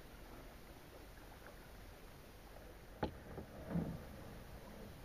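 Kayak being paddled over faint lapping water, with one sharp knock about three seconds in and a short, louder, low sound just after it.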